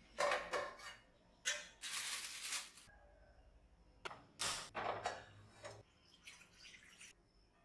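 Steel cookware being handled: short clatters and a longer scrape of steel pans and lids on a kitchen counter and gas hob, with a sharp click about four seconds in as a stove knob is turned, followed by a steel kadai being set down on the burner.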